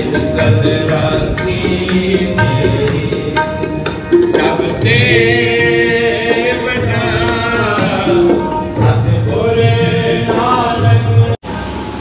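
Sikh devotional kirtan: a voice singing a wavering, drawn-out melody over tabla drumming.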